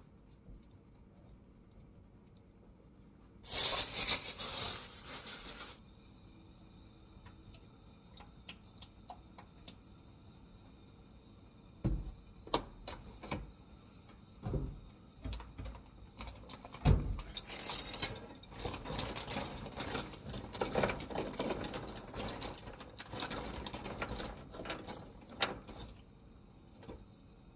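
Kitchen food-preparation sounds: a loud hiss lasting about two seconds near the start, then a few separate knocks, then a long stretch of rapid clattering and tapping of utensils and cookware.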